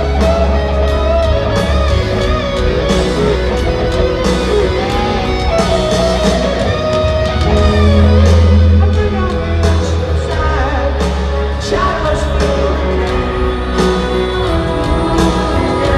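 Live rock band in an arena: an electric guitar lead with bending notes over piano, bass and drums, heard loud from the audience seats.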